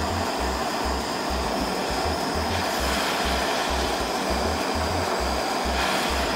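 Steady rushing blow of a hot-air blower aimed at slime, which melts off a metal spoon. Background music with a steady low beat about twice a second runs underneath.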